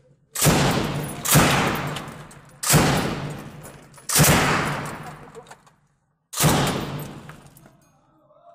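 PK-type belt-fed machine gun fired from a sandbagged position: five loud reports at uneven intervals, each with a long echoing tail that dies away before the next.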